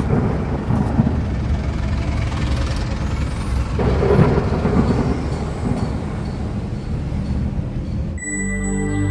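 Engine and road noise heard inside a moving car: a steady low rumble that swells for a while around the middle. Music cuts in near the end.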